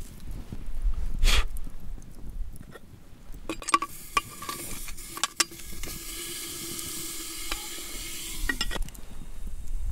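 Fire-heated stones placed with tongs into a metal milk can of marinated meat for khorkhog: a few sharp clinks of stone and tongs against the can, then a steady sizzle as the hot stones sear the meat, stopping near the end.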